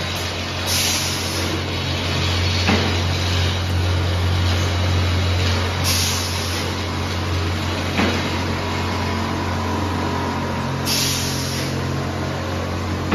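Fishing-rod making machine running with a steady low hum. Three short hissing bursts come about five seconds apart, and two sharp knocks fall between them.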